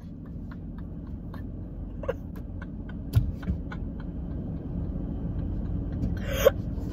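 Steady low rumble inside a stationary car's cabin, with scattered faint clicks and a short stifled laugh near the end.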